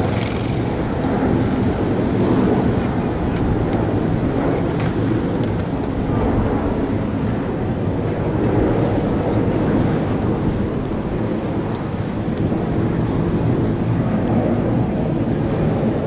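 Steady low rumble of an Airbus A330-200's jet engines, with wind buffeting the microphone.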